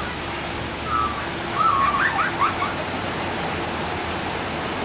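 Steady rushing noise with a faint low hum under it, and a short run of quick high chirps about a second in.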